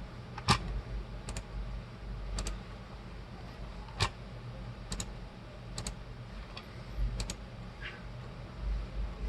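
Scattered clicks at a computer's input devices, about ten over several seconds, several in quick pairs, over a low steady hum.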